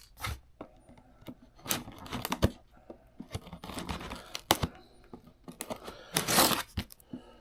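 A cardboard box and its plastic packaging being opened and handled by hand: scattered crinkles, clicks and taps with short tearing rustles, the loudest a tear about six seconds in.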